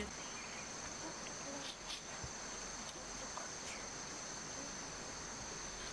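Insects trilling steadily in one unbroken high-pitched tone, with a few faint ticks about two seconds in.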